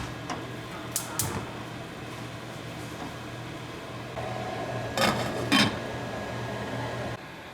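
Kitchen cooking sounds: a steady appliance hum under a few light clinks of utensils on cookware, then two louder pan-and-utensil clatters about five seconds in. The hum drops away just before the end.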